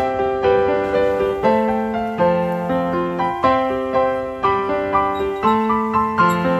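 Background piano music: a slow melody of struck notes, each ringing and fading, about two notes a second.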